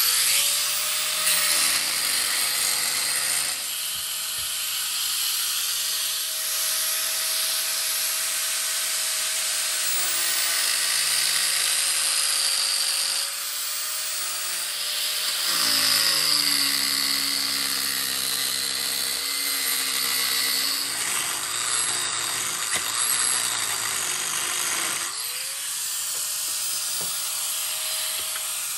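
Handheld electric right-angle grinder grinding out cracked fiberglass on a sailboat's hull bottom. Its motor whine sags and recovers as the disc bears on the laminate, with a rougher, lower grinding between about two-thirds and three-quarters of the way through.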